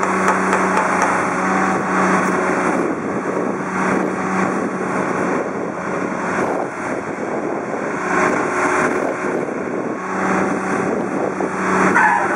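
Fiat-Hitachi FH200W wheeled excavator's diesel engine running with its hydraulics working as the boom and stick move, a steady hum that swells at times under load. A brief wavering squeal comes near the end.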